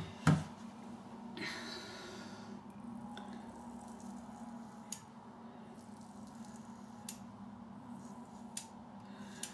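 Safety-razor leg shave: a sharp knock about a third of a second in, a short wet swish, then faint scattered clicks and soft scraping as a Leaf razor is drawn over the lathered leg.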